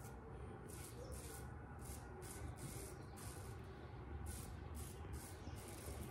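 Kamisori straight razor scraping through lather and stubble on the second pass, a faint rasp with each short stroke, about two a second.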